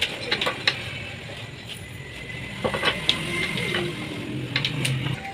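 Metal tools and engine parts clinking and clicking during work on a United CD 70 motorcycle engine, with scattered sharp knocks.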